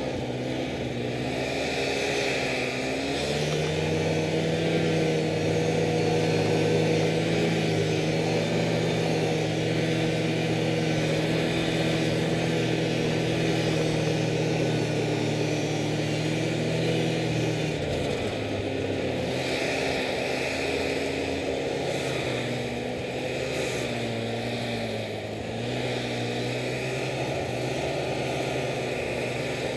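Snowmobile engine running under way through snow, heard from on board. Its pitch steps up about three seconds in and holds steady, then drops back at about eighteen seconds and wavers as the throttle eases and opens again.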